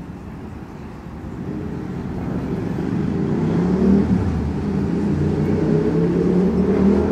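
A motor vehicle's engine growing louder over the first few seconds, then staying loud, its pitch shifting up and down.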